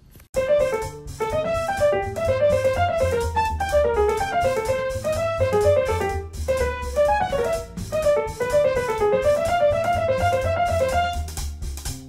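Background music: a quick, bouncy keyboard melody over a steady bass and drum beat, starting suddenly a moment in.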